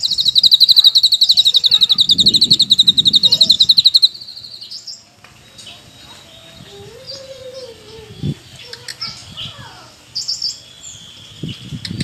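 Caged cucak kinoi leafbird singing a loud, fast rattling trill for about four seconds that ends on a short held high note, followed by quieter scattered chirps.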